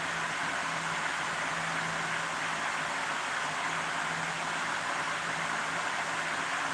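Steady mechanical whooshing noise with a low steady hum underneath, unchanging throughout.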